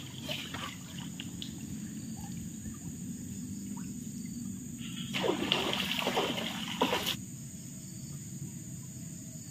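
Water trickling and splashing in a forest river, over a steady chirring of insects, with a louder stretch of about two seconds about five seconds in.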